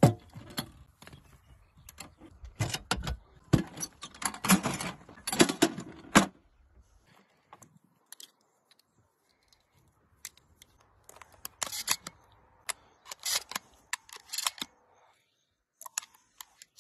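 A metal ammo can and shotgun shells being handled, then shells pushed into a shotgun's loading port: a string of clicks, clacks and rattles. A sharp knock comes right at the start, the densest clatter comes a few seconds in, and lighter clicks follow.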